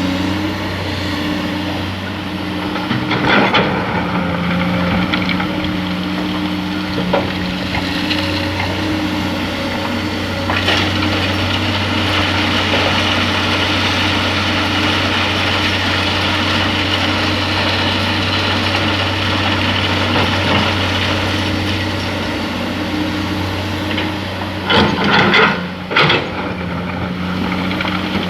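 Diesel engine of an excavator loading sand, running steadily at a constant pitch. Short harsh rattling bursts come about three seconds in and twice close together near the end.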